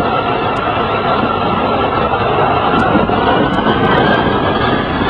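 Jet engines of an Air France wide-body airliner running at the end of the runway, a loud, steady roar heard from behind the aircraft, in the path of its exhaust.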